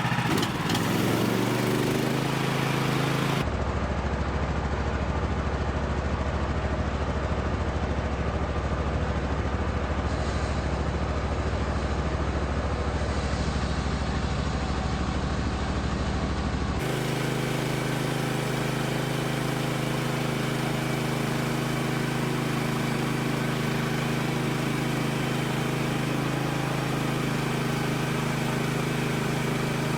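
Woodland Mills HM130MAX sawmill's gasoline engine running steadily, its pitch shifting in the first couple of seconds. Its tone changes abruptly twice, about three and a half seconds in and again about seventeen seconds in, as separate clips are joined.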